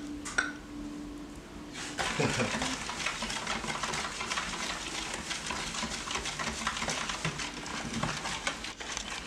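A spoon stirring sugar into tomato sauce in a plastic food tub, a rapid, continuous run of scraping and tapping against the tub that starts about two seconds in.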